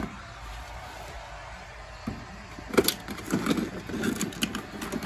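Plastic action figures and a toy ladder being handled in a toy wrestling ring: a sharp click about three seconds in, then a run of short, irregular knocks and rustles.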